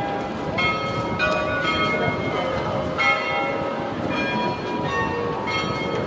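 Church bells of the Peter and Paul Cathedral bell tower ringing. Several bells of different pitches are struck in quick succession, about two strokes a second, and each note rings on under the next.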